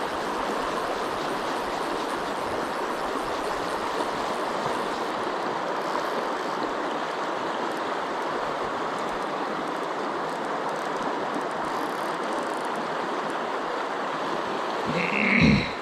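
River water rushing steadily over a riffle. A person's voice briefly exclaims near the end.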